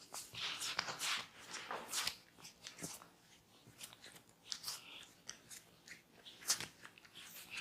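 Close-up massage sounds: a barber's hands rubbing and scratching over skin and hair in irregular short strokes, a few a second, with one stronger stroke about three quarters of the way through.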